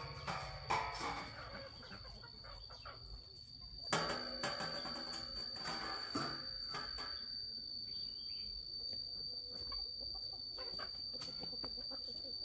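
Chickens clucking in scattered short calls over a steady high-pitched whine.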